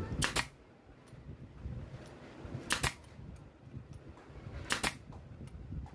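Pneumatic air stapler firing three times, about two seconds apart. Each shot is a sharp double snap.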